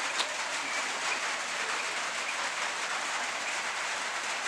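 Steady rain falling, an even hiss, with a single light tick near the start.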